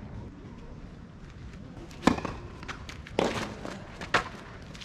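Sharp single knocks of a tennis ball, about a second apart, starting about two seconds in.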